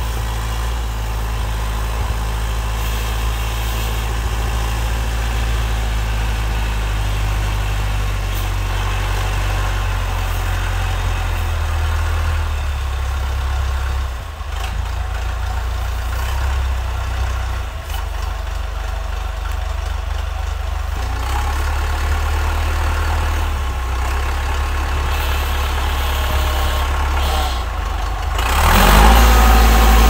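Perkins diesel engine of a Massey Ferguson MF50E backhoe running steadily, its speed shifting a few times, then revving up and getting louder near the end.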